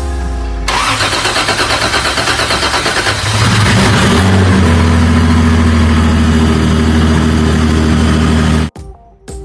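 Toyota Supra MKIV's rebuilt, single-turbo 2JZ inline-six starting up: a few seconds of cranking and rough firing, then a steady idle. The sound cuts off abruptly near the end.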